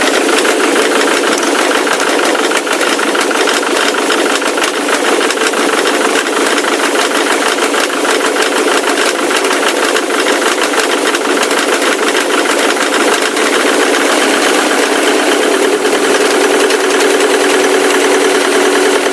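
Ford Mondeo Mk3 turbo-diesel engine running steadily with a rapid, even knocking. The owner finds the knock very puzzling and hears it coming from the left side of the engine, as if from the chain.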